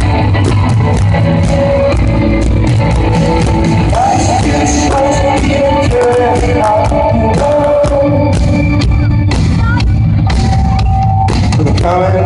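A rock band playing live at full volume: drum kit and electric guitars, with a voice singing over them.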